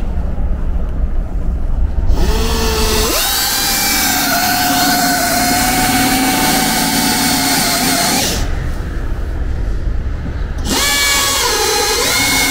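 Pneumatic drill boring into the steel body panel of a Toyota HiAce van: a low rumble, then the drill whines up to speed about two seconds in and runs for about six seconds. It stops briefly and starts again a couple of seconds before the end.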